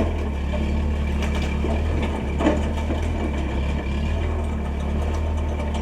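Engine of heavy machinery clearing trees, running steadily with a low, even hum.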